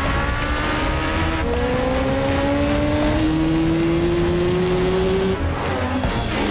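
Sport motorcycle engines running hard at high revs. Their pitch climbs steadily and drops with a gear change about a second and a half in and again past the five-second mark.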